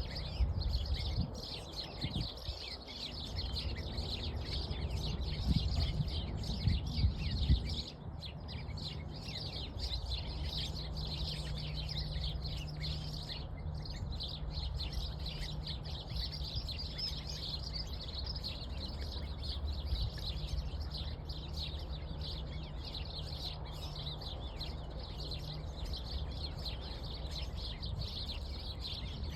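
Spring chorus of many songbirds singing and chirping at once, a dense high twittering that never lets up. A steady low hum and rumble lie underneath, louder in the first eight seconds or so.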